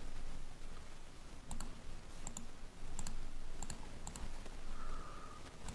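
Computer mouse clicking, a series of sharp separate clicks about every half second to a second, as chess pieces are picked up and dropped on an on-screen board.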